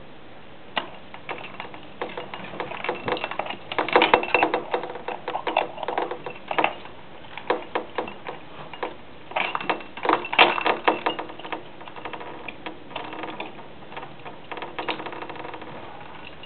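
Plastic bell garland rattling and jingling in irregular clattering bursts as a cat bats and tugs at it, busiest about four seconds and ten seconds in, then thinning out.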